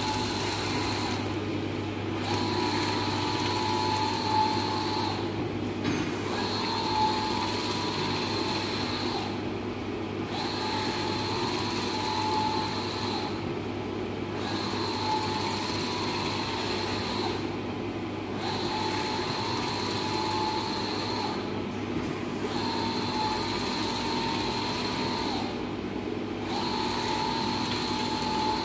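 Large-format banner printer printing: the print-head carriage runs across with a steady whine, stops for about a second, then runs again, about once every four seconds, as the banner advances between passes. Underneath is a steady machine hum.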